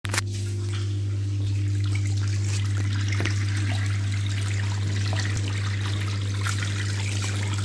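Washing machine draining: a steady hum from the drain pump, with water gushing out of the drain hose and splashing into a sink basin.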